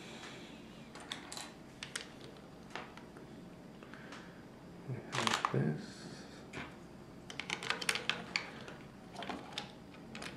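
Plastic LEGO bricks clicking and snapping as they are handled and pressed together, in scattered clicks with a louder clatter about halfway and a quick run of clicks soon after.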